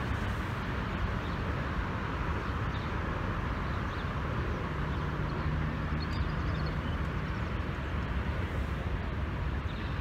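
Steady hum of distant road traffic, with a low engine drone coming in about halfway through.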